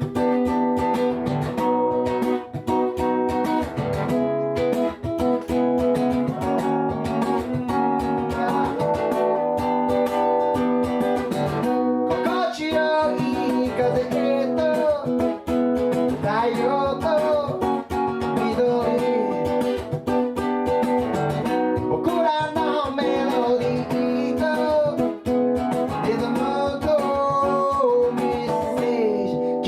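Acoustic guitar strummed in a steady rhythm, with a singing voice coming in about twelve seconds in: a live song performance.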